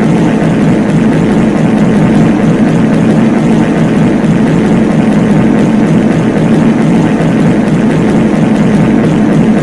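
Many reverb fart sound effects layered over one another into a loud, unbroken low rumble, with no single fart standing out.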